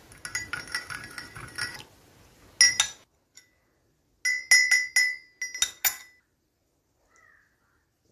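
Metal teaspoon clinking against a ceramic teacup: a quick run of light clinks while stirring for about two seconds, a single louder clink, then a fast series of loud ringing clinks about four to six seconds in.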